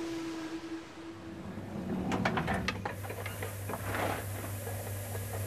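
The closing music's held note fades out; then a run of clicks and knocks sounds over a steady low hum.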